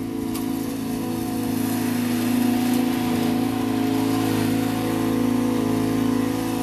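Husqvarna Z248F zero-turn mower running steadily while mowing, its engine note growing louder as the mower drives close by and then easing as it moves away.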